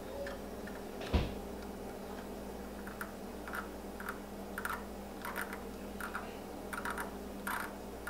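Small clicks and scraping ticks, about two a second, as a 0.041-inch drill bit in a hand-turned pin vise is worked into a carburetor main jet to enlarge it, with one sharper knock about a second in.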